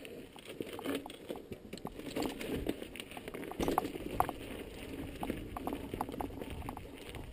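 Mountain bike rolling over a rocky, gravelly trail: tyres crunching on stones, with irregular clicks and knocks as the bike bumps over rocks.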